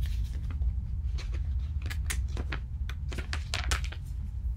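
Picture-book pages rustling and the book being handled, a run of short soft clicks and taps, over a steady low hum.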